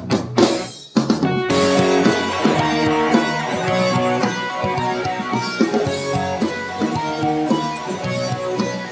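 Instrumental background music led by guitar, with drums. It fades briefly just under a second in, then comes back in full.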